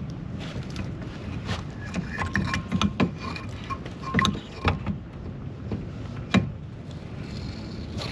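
Knocks, clicks and short squeaks of trolling-motor mount parts being worked into a tight fit, with one sharp knock about six seconds in, over a steady low hum.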